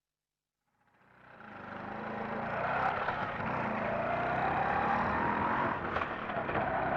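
CNG autorickshaw engine running, starting about a second in and building up to a steady run, a low throb under a whine that wavers slightly in pitch.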